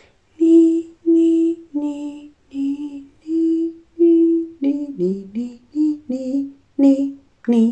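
A woman humming a short, slow tune: a string of held notes, with a quicker run of notes about five seconds in.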